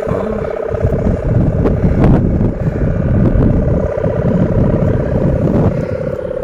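Kite sendaren (bamboo-and-string kite hummer) giving a steady droning hum in the wind, with wind buffeting the microphone.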